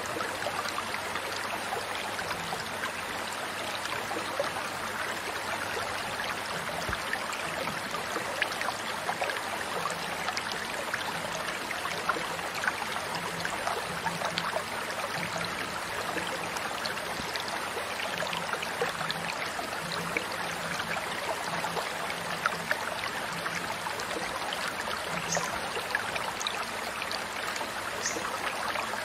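Running water: a stream trickling and splashing steadily, with many small droplet ticks.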